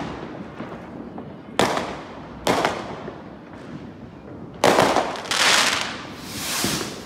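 Aerial fireworks going off: three sharp bangs at uneven intervals, then two longer bursts that swell and fade near the end.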